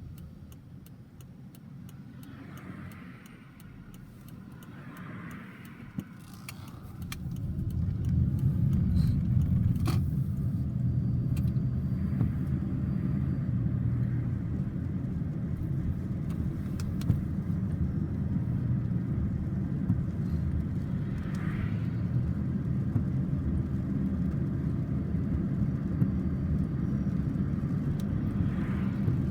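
Thunder rumbling in a thunderstorm: a low, rolling rumble that swells about seven seconds in and keeps going, with a few sharp crackles.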